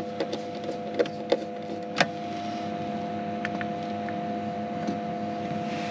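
Steady hum with a few fixed tones from a Victron IP22 12 V 15 A battery charger running while it bulk-charges. A few light clicks and knocks of a hand screwdriver and screw come in the first two seconds.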